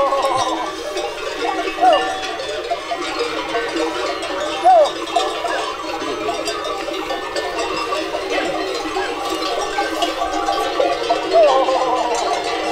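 Many neck bells on a herd of goats clanking and ringing together as the herd moves, with goats bleating now and then, the loudest bleats about 2 and 5 seconds in.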